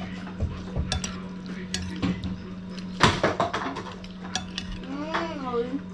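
Metal spoon clinking and scraping against a ceramic plate of rice as food is scooped up, in scattered sharp taps with the loudest clink about three seconds in.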